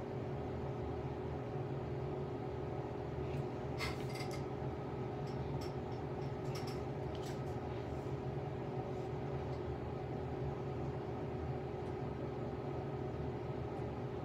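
Steady low mechanical hum with a faint steady tone in it, and a few light clicks and taps about four seconds in and again around seven seconds.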